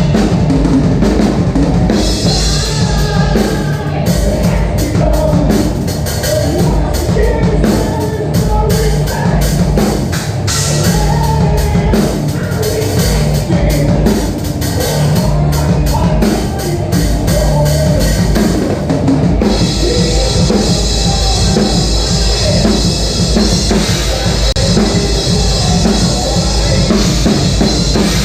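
Rock music with a full drum kit, bass drum and snare keeping a steady beat; the band gets fuller and brighter about two-thirds of the way through.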